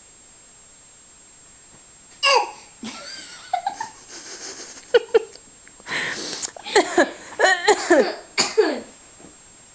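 Deliberate coughing: a cough a couple of seconds in, another near the middle, then a rapid run of coughs mixed with laughter-like, wavering sounds through the second half.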